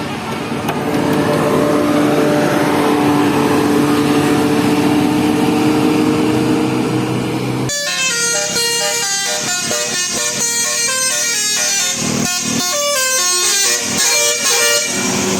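Bus horn holding a steady chord over engine and road noise. About eight seconds in, it switches abruptly to a quick melody of rapidly changing notes.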